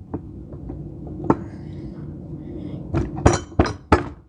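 Metal on metal clinking: a few light knocks, one sharp strike just over a second in, then a quick run of four or five sharp, ringing clinks near the end.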